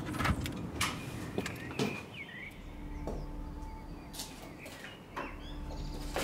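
A key clicking and rattling in a metal deadbolt lock, then the door being pushed open with knocks and a short squeak. A low steady hum comes in a little over two seconds in.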